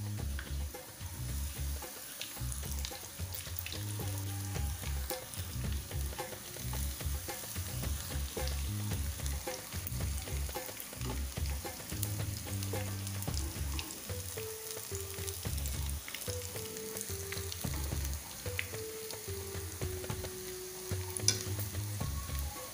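Batter-coated onion rings deep-frying in oil in a frying pan: a steady sizzle with crackling, while a fork and chopsticks turn them. A sharp click stands out near the end.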